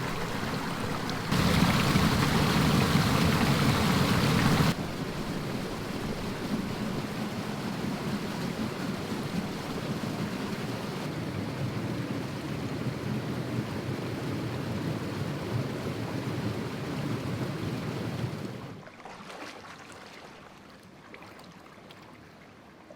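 Steady rush of flowing water from a natural spring, much louder for about three seconds shortly after the start and falling clearly quieter near the end.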